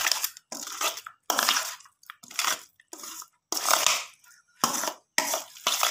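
A spoon mixing potato chunks with spices in a stainless steel bowl: about eight irregular scraping, squishy strokes with short pauses between them.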